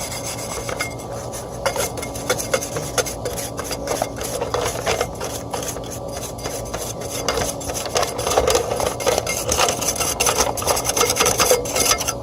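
Caked dirt being scraped and rubbed off the inside of an exhaust fan, in quick, irregular strokes. It is the dirt buildup that overloaded and killed the old fan motor.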